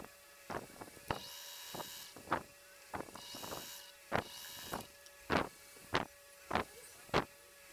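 Sewing machine running in short bursts, with repeated sharp clicks every half second or so and a faint steady hum.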